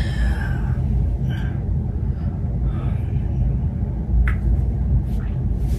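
Steady low rumble of room background noise, with a few faint murmured words and a sharp click a little past four seconds.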